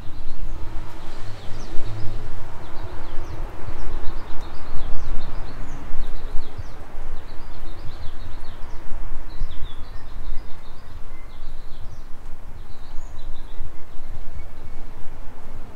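A flock of small birds chirping busily and without pause, over a loud, uneven low rumble.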